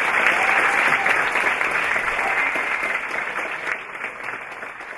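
Audience applauding after a speech: a dense crowd clapping that gradually fades away toward the end.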